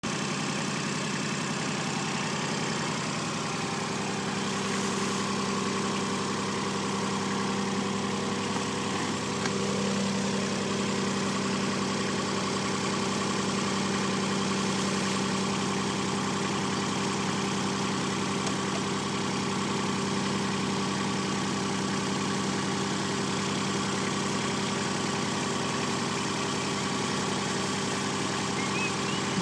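An engine idling steadily, its pitch and level unchanging throughout.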